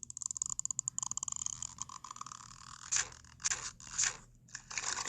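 Cartoon sound effects: a rapid run of crackling clicks for about two and a half seconds, then four short noisy bursts.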